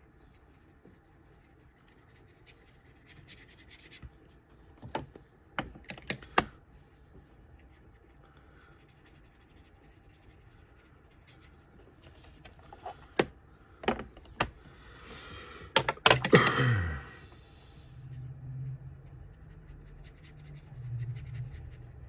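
Handling sounds on a painting desk: a handful of sharp clicks and taps, then, about two-thirds of the way through, a louder scrape with a squeak falling in pitch as the taped watercolor board is turned on the mat.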